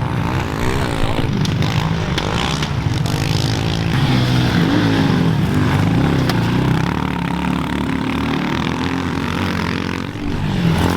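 Pit bike engine revving, its pitch rising and falling over and over as the throttle is worked.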